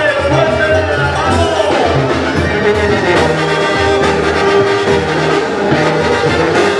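Brass band music, with trumpets and trombones over a steady bass and percussion beat, in the style of a Mexican banda.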